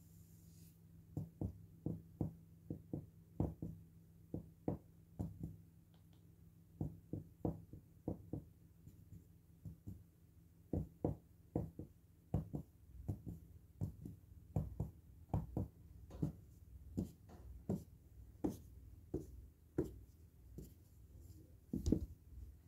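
A run of soft, low thumps on a laminate floor, close to a microphone resting on that floor: about two a second in stretches, with short pauses, the loudest near the end. A faint steady hum lies underneath.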